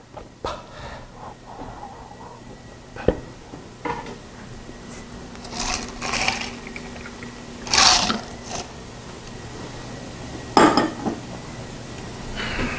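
Scattered knocks, clicks and short scraping or rustling noises of objects being handled, a few louder than the rest, over a steady low hum.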